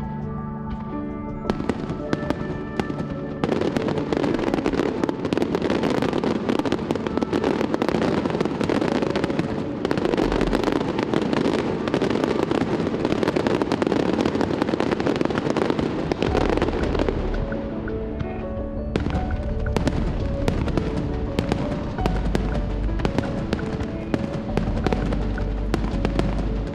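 Aerial fireworks bursting and crackling in quick succession over background music. A dense crackling barrage fills the middle of the stretch, then thins to separate bangs as the music comes forward near the end.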